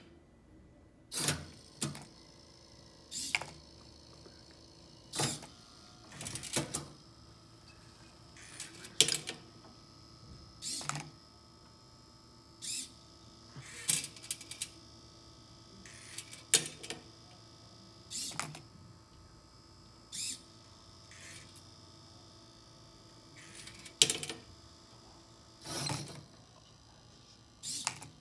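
Marble sorter machine running: a string of sharp clacks, one every second or two at uneven spacing, as marbles drop and its parts knock against the metal frame and cups, over a faint steady hum.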